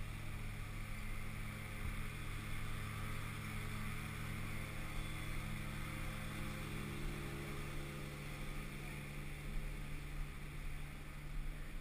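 A steady low hum of a few held low tones over a faint even hiss, unchanging throughout.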